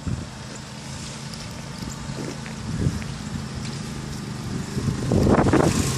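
Go-kart's small engine running as the kart drives over grass, getting louder as it approaches about five seconds in.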